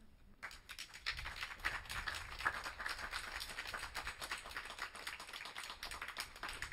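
Light applause from a small audience, starting about half a second in and going on as a dense patter of claps.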